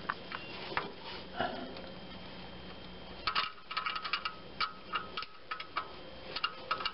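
13 mm box-end wrench working a nut off a coil-pack bracket stud. From about three seconds in it gives a quick run of metallic clicks, several a second, each with a light ring.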